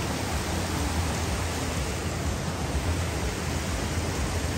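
Mountain stream rushing down a rocky cascade: a steady, even wash of water noise.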